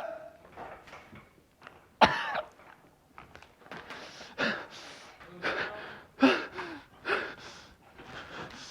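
A person coughing and gasping in short strained bursts, with a sudden loud cry about two seconds in.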